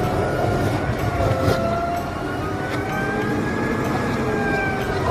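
Automated side-loader garbage truck working its lift arm: the engine runs under a steady rumble while the hydraulics whine in tones that slowly rise and fall as the cart is emptied into the hopper and lowered again.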